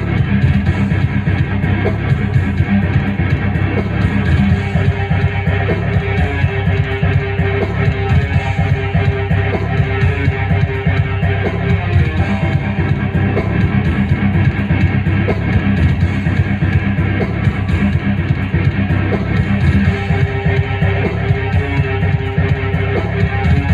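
Music played on a Technics SX-KN7000 arranger keyboard: a guitar-like part over a steady, bass-heavy backing. A note is held for several seconds from about four seconds in, and again near the end.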